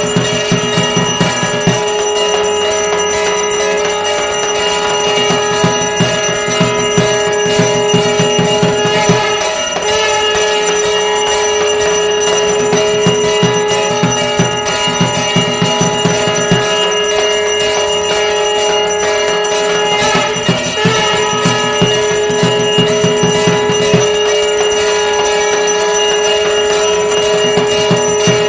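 Hand bell rung rapidly and continuously during a Hindu aarti, a steady unbroken ringing.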